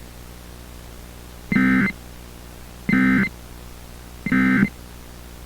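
Emergency Alert System End of Message (EOM) code: three short bursts of SAME digital data tones, each under half a second and about a second and a half apart, marking the end of the EAS test message.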